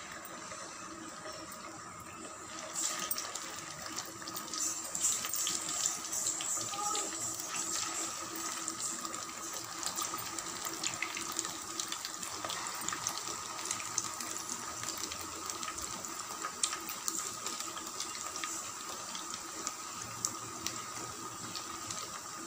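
Bread-and-aval vadai patties sizzling and crackling as they deep-fry in hot oil. The sizzle grows louder and busier about three seconds in as more patties go into the oil.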